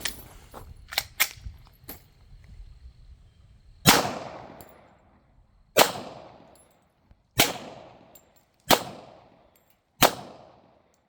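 Five shots from a Glock pistol, fired one at a time about one and a half to two seconds apart, each with a long echoing tail. The pistol cycles every round without a malfunction after being cleaned of mud. A few light metallic clicks of gun handling come in the first two seconds.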